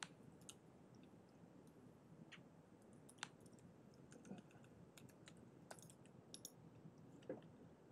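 Faint, irregular keystrokes on a computer keyboard, isolated clicks over quiet room tone.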